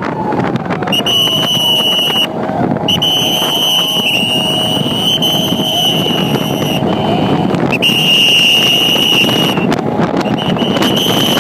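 Siren of a race escort vehicle sounding: a high, steady tone in four long blasts of one to four seconds each, over a lower wailing tone that slides slowly down and then holds, with the steady noise of the moving vehicle underneath.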